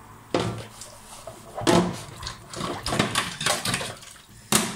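Dishes and utensils knocking and clinking in a stainless steel sink as they are washed by hand: a handful of separate, irregular sharp knocks.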